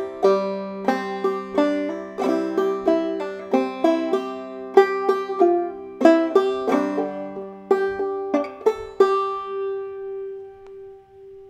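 Open-back banjo played clawhammer style: a quick run of plucked melody notes and brushed strums over a ringing drone string. The playing stops about nine seconds in and the last notes ring on, fading away.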